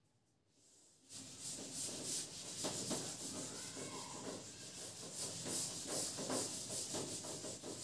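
Handwriting: a writing tool rubbing across a writing surface in many short, scratchy strokes, starting about a second in.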